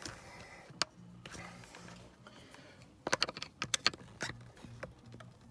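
Light plastic-and-metal clicks of hands working a wire's blade connector off a tab on a steering wheel's airbag mounting: one click under a second in, then a quick run of small clicks about three seconds in.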